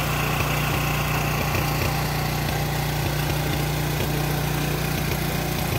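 Powerland PD4400E portable generator's engine running steadily at a constant speed, an even low hum.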